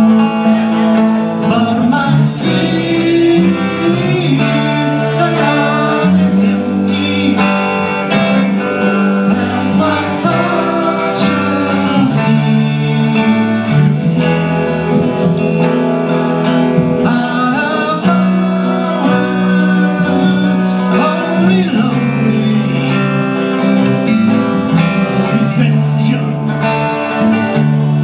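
Live rock band playing a song: a woman singing lead over electric guitars, bass guitar and a drum kit with regular cymbal hits.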